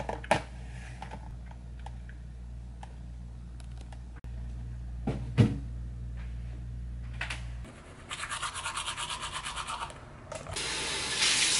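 Teeth being brushed with a toothbrush: fast, even scrubbing strokes start about two-thirds of the way in and give way to a louder, steadier scrubbing hiss near the end. Before that there is only a low room hum with a couple of small knocks.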